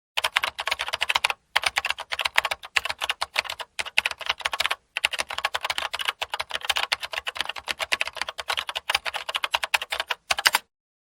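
Fast typing on a computer keyboard, a steady run of key clicks broken by a few short pauses.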